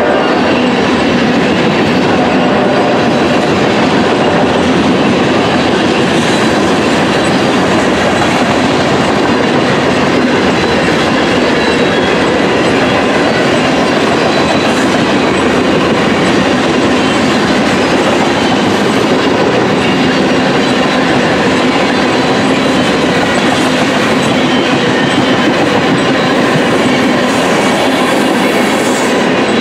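Covered hopper cars of a freight train rolling past close by: a steady loud rumble and clatter of steel wheels on the rails.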